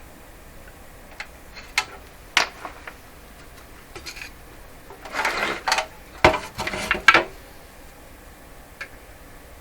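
Scattered hard clicks and rattles of a tube radio's loose circuit board and plastic cabinet being handled, with a busier run of knocks and scraping about five to seven seconds in.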